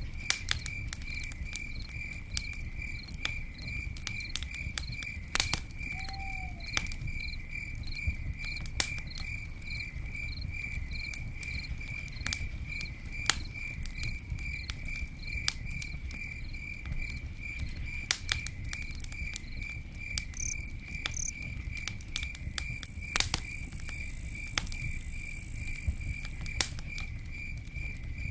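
Campfire crackling, with scattered sharp pops over a low rumble of the burning wood. A cricket chirps steadily throughout, about two chirps a second.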